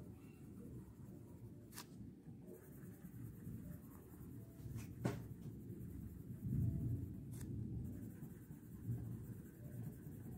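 Colouring in on paper: continuous scratchy back-and-forth strokes of a colouring implement, with three sharp small clicks spread through.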